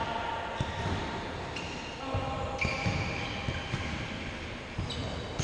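Futsal game play in a large sports hall: the ball knocking off feet and the floor, with athletic shoes squeaking briefly on the court several times.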